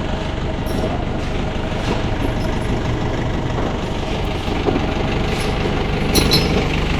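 Large vehicle engine idling steadily, with a few light clicks and knocks over it, most around six seconds in.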